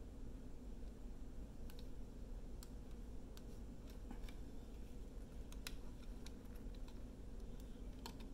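Faint scattered small clicks and ticks of a metal wing nut being turned down on the clamp of a wooden craft stand, tightening it onto a scroll frame, over a steady low hum.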